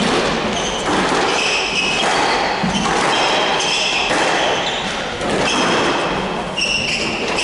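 Squash rally: court shoes squeaking again and again on the hardwood floor as the players change direction, with the ball being struck and hitting the walls.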